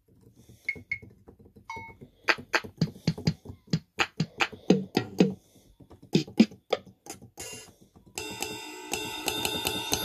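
Yamaha PSR-60 keyboard's built-in percussion voices played from the keys: a string of short drum and handclap hits, some with a dropping pitch. From about eight seconds in, a held chord of many steady tones sounds.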